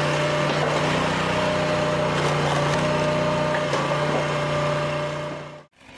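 Commercial hydraulic log splitter running: a steady engine and hydraulic pump drone, with wood cracking and splintering as a log is forced through the splitting blades. It cuts off suddenly near the end, and a different machine sound follows.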